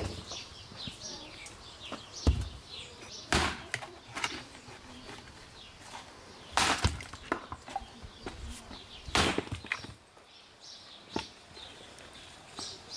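Axe splitting firewood rounds on a chopping stump: four heavy chops spread a few seconds apart, with a few lighter knocks between them. Small birds chirp in the background.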